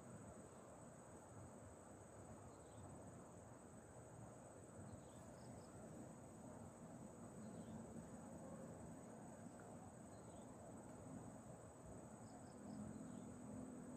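Faint steady high-pitched drone of crickets, with faint short chirps every two or three seconds, over a low rush of the fast-flowing river.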